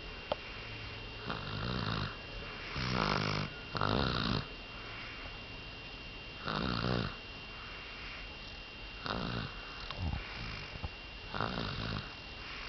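Snoring in sleep: a rattling snore about every two to three seconds, two of them back to back around three to four seconds in.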